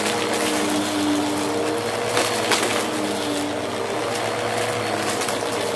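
Bissell CleanView upright vacuum running on carpet, its motor hum stepping up and down in pitch as it is pushed back and forth. There is a light crunch and crackle of confetti and small debris being sucked up, with a brief burst of it about two seconds in.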